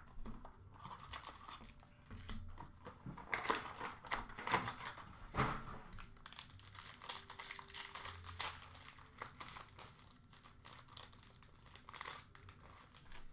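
Crinkly wrapper on a sealed trading-card box crumpling and tearing as it is pulled off by hand: a long run of short, irregular crackles.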